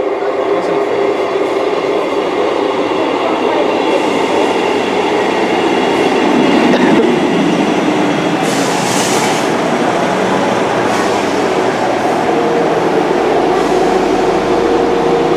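Class 158 diesel multiple unit pulling into the platform: a steady, loud rumble of engines and wheels with a few thin, steady high tones over it. A short hiss comes about nine seconds in.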